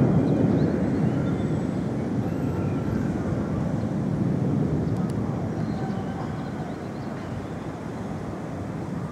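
Distant thunder rolling as a storm approaches: a long low rumble, loudest at the start and slowly dying away.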